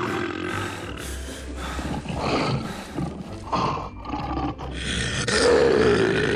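Lion roars as a sound effect, in several separate bursts, the longest and loudest starting about five seconds in.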